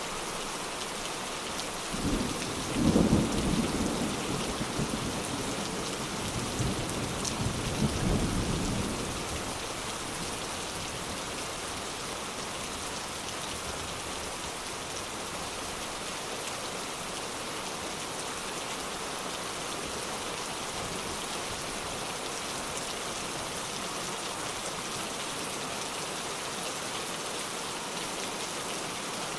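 Steady heavy rain, with a roll of thunder about two seconds in that rumbles for several seconds, swelling again before it fades.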